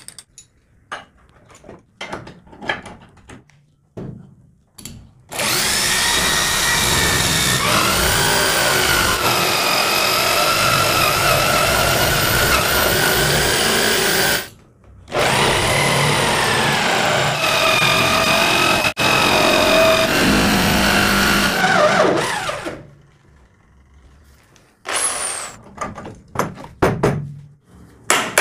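Corded electric drill driving a hole saw cutter through a wooden board to cut out a round wheel: a steady motor whine in two runs of about nine and seven seconds with a brief pause between, the second winding down as it stops. Small clicks and knocks of the cutter being fitted before the drilling and handled after it.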